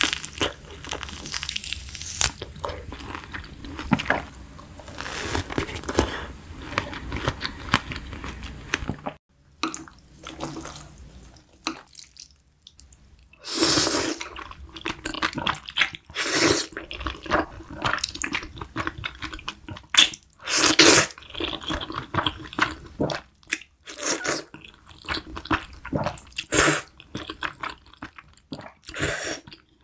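Close-miked eating sounds: crunchy bites and wet, squishy chewing in short, irregular bursts. About nine seconds in, a denser continuous layer with a low rumble drops away, and after that the bites stand apart with quiet gaps between them.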